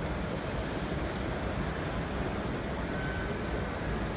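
Steady background din of a crowded exhibition hall, an even wash of noise with no single clear source; a faint brief whistle-like tone sounds about three seconds in.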